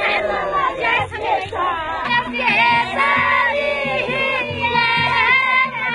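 A group of women singing a traditional Nepali rice-planting folk song together, with a low beat about twice a second underneath.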